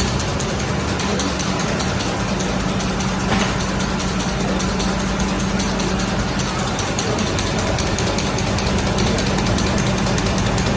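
Oyang P Series roll-to-piece digital printing machine running: a steady hum under a fast, even mechanical clatter.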